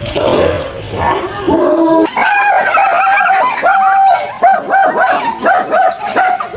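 A dog yelping, then settling about two seconds in into a fast run of high, even-pitched barks, about three a second.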